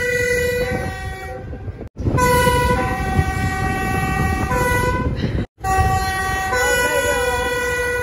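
A two-tone train horn sounding long blasts, switching back and forth between a lower and a higher note over the low rumble of the moving train. The sound drops out abruptly twice, about two seconds in and five and a half seconds in, where separate clips are joined.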